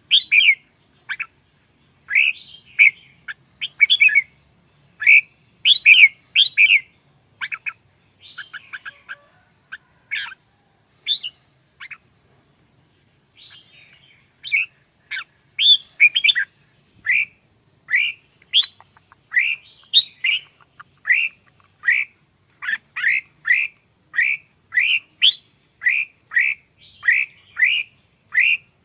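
Red-whiskered bulbul (chào mào) singing: short, bright whistled notes, in loose phrases at first. After a brief pause about twelve seconds in, the notes come in a steady run of about two a second.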